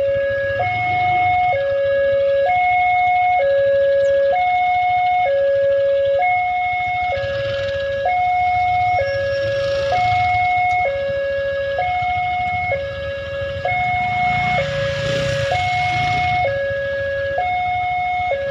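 Railway level-crossing warning siren sounding a steady two-tone electronic alarm, stepping between a low and a high note just under once a second, signalling that a train is approaching the crossing.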